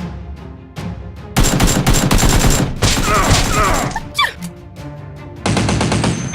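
Rapid gunfire sound effects over background music, a dense volley starting about a second and a half in, followed by a few short falling whistles.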